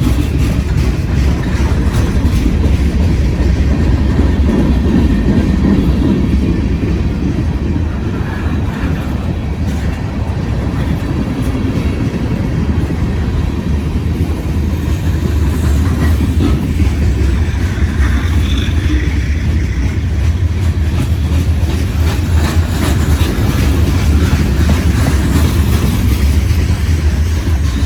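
Long CSX freight train rolling past at close range: a steady, loud rumble of the freight cars' wheels on the rails, with faint repeated clicking.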